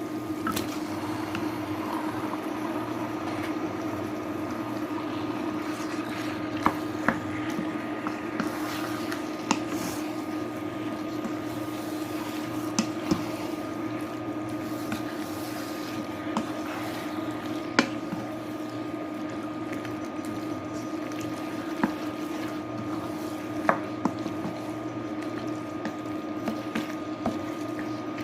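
A spoon stirring chicken pieces into a simmering tomato-onion masala in a pan, with a steady hiss and hum underneath and a sharp click of the spoon against the pan every few seconds.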